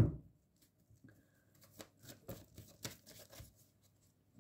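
Tarot cards being handled: a few faint, scattered flicks and clicks of the cards over about two seconds.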